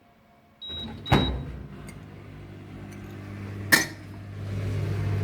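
Washing machine starting up: its motor and drum set in with a steady low hum that grows louder, with a brief high tone near the start. Two loud bangs come about a second in and again near four seconds, the banging fault the machine has developed.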